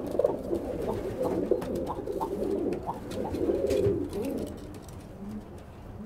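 Tippler pigeons cooing in a loft, several birds overlapping, with a few light clicks.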